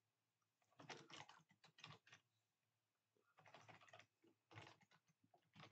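Faint computer keyboard typing: three short runs of quick keystrokes with pauses between.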